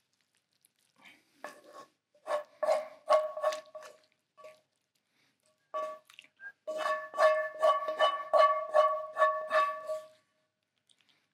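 Filling being scraped out of a ceramic-coated frying pan with a knife and a wooden spoon. Each stroke makes the pan ring with a short steady tone. There is a short run of strokes, then a longer, quicker run of about three strokes a second.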